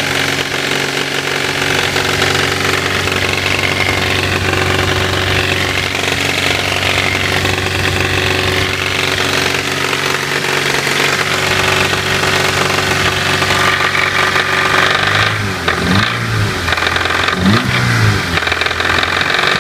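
Toyota AE92 Levin's 4A-GE 1.6-litre twin-cam four-cylinder engine idling steadily, then revved in several short blips from about fifteen seconds in. The engine has a knock that the owner is recording it to show.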